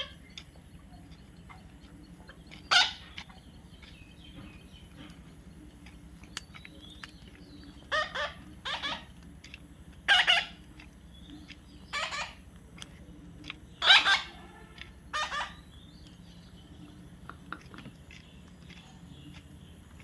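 A parrot squawking in short, harsh calls, about seven spread unevenly, with a pair close together near the middle.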